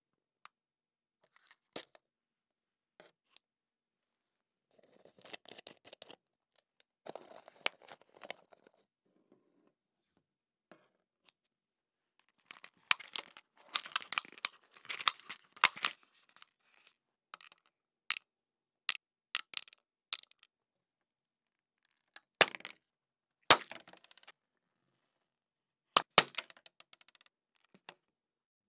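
Thin plastic drinking bottle and small plastic candy box handled by hand: patches of crinkling and crackling plastic with sharp clicks and taps. The crinkling is busiest in the middle, and a few louder single taps come near the end.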